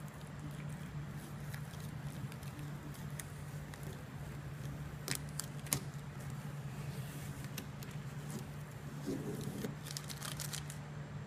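Vinyl stencil being peeled off a Plasti Dip–coated surface and crumpled in the hand: scattered crinkles and a few sharp clicks, several of them together near the end, over a steady low hum.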